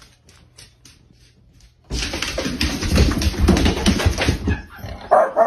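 Faint tapping, then a loud, dense commotion that starts suddenly about two seconds in. Dogs bark near the end.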